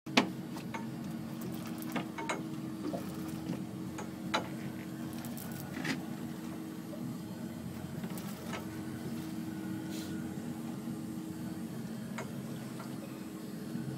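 Boat engine idling with a steady low hum. A few scattered sharp clicks and knocks sit on top of it, the loudest just after the start and about four seconds in.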